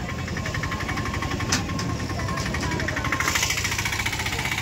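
Vehicle engine idling close by, with a steady, rapid, even beat. A single sharp click about a second and a half in.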